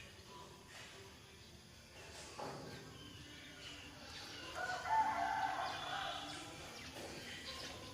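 A bird call, one long pitched call lasting about two seconds, starting about halfway through.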